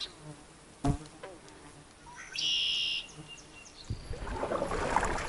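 Outdoor ambience by a pond: a couple of sharp clicks, then a short high bird call about two and a half seconds in. From about four seconds there is a crackling, splashing sound of water.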